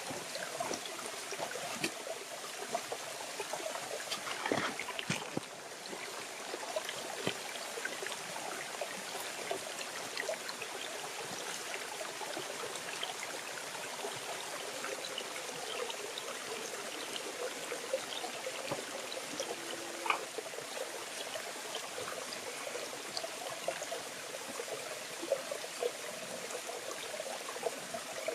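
Small waterfall spilling into a shallow pool: a steady trickling and splashing of water, with scattered small clicks and splashes and a slightly louder cluster of them about four to five seconds in.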